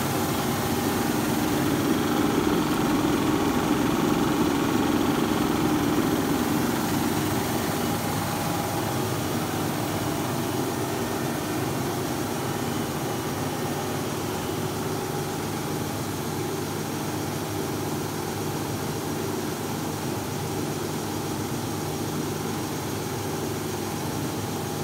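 Daco SI350 label inspection slitter rewinder running with a steady mechanical hum as its rollers wind the label web onto the rolls, a little louder in the first few seconds.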